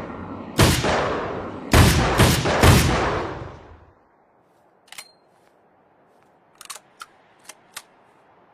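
Springfield Armory M1A semi-automatic rifle firing four shots: one, then after about a second three more in quick succession about half a second apart. Each shot leaves an echoing tail that fades out. A few small faint clicks follow near the end.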